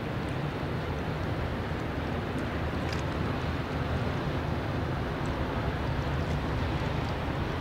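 Distant freight train running along the railway on the far bank of a wide river, heard across the water as a steady low rumble.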